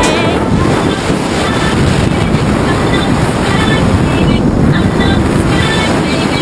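Steady wind rushing over the camera microphone of a skydiver descending under an open parachute canopy.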